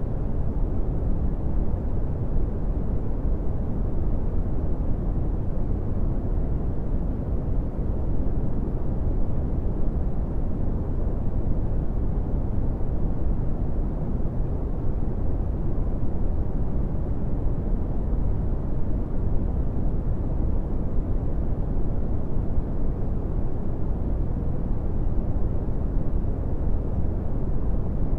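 Steady brown noise: an even, deep rush with most of its weight in the bass and almost no treble.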